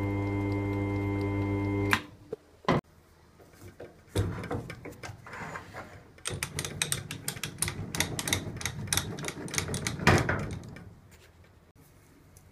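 Lathe motor hum that stops abruptly about two seconds in. Then come two sharp metallic clicks and several seconds of clicking and rattling metal as the tailstock drill chuck is released from a tapered tap and a tap wrench is fitted to it.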